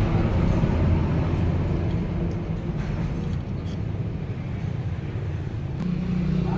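An engine running steadily at low revs, a low even hum, with a click about six seconds in where its note steps up.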